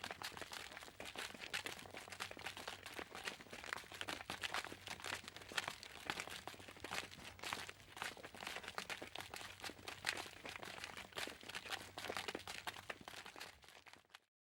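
Footsteps crunching steadily over a loose, crunchy surface, each step a cluster of crackly clicks; the sound cuts off abruptly near the end.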